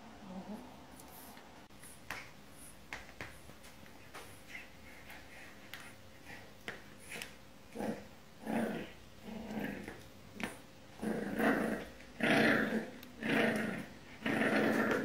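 A French bulldog puppy growling in short, repeated bursts that start about halfway through and grow louder toward the end, with a few light clicks before them.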